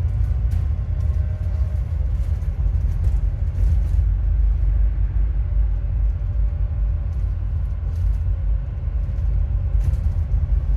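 Alexander Dennis Enviro400MMC double-decker bus running on the road, heard from inside the cabin: a steady low engine and road rumble with a faint, steady whine above it. The whine is the likely sign of the bad alternator the recording is about.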